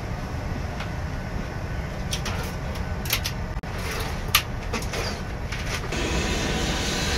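Steady low rumble of a private jet's cabin, with a few light clicks and knocks.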